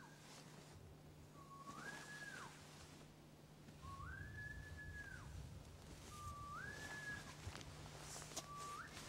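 A person whistling a two-note call over and over, about every two and a half seconds. Each call is a low note that slides up to a held higher note and then drops away. Within the story it is the Yeti's whistle.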